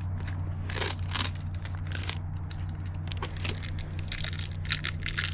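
Paper and cardboard crinkling and tearing in irregular bursts as a packed box is opened and rummaged through, over a steady low hum.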